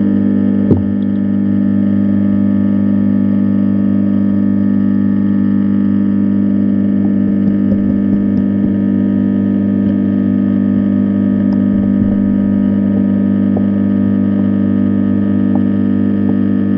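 Loud, steady hum made of several fixed low tones, as heard through an underwater camera, with a few faint clicks.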